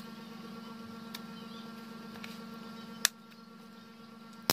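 Plastic opening pick prying along the seam of a Realme C11's back cover, giving a few faint clicks of the cover's plastic clips, the sharpest about three seconds in, over a steady low electrical hum.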